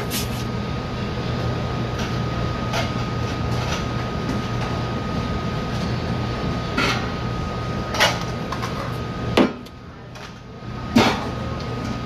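A few sharp knocks and clatters of kitchenware handled on a stainless steel counter, among them a stainless steel mixing bowl being set down, over a steady machine hum. The hum briefly drops away about ten seconds in.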